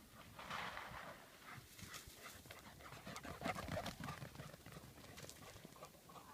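Two dogs running along a dirt trail: light, irregular paw footfalls and panting.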